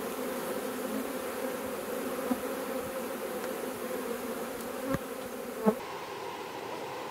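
A mass of honeybees buzzing around an open hive as a swarm is brushed into it, a steady, dense hum. Two short knocks come about five and six seconds in.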